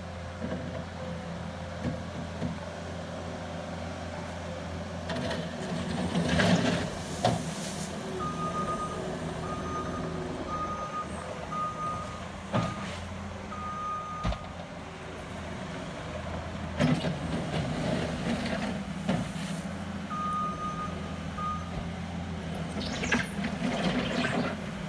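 Case compact track loader working: its diesel engine runs steadily while the reverse alarm beeps in two spells, one long and one short. Several sharp knocks and scrapes come from the bucket and tracks while it cleans up a gravel pile.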